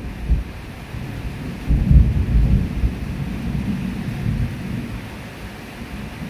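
Steady rain falling on wet paving and garden plants, with a low rolling rumble of thunder that swells about two seconds in and then fades away.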